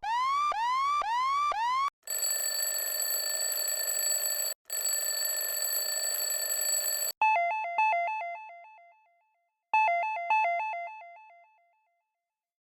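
Electronic alert tones from a phone sound-effect app. First a rising chirp repeats rapidly, about three times a second. Then a steady buzzing tone runs for about five seconds with one short break, followed by two rounds of a trilling two-note chime, each ringing out and fading.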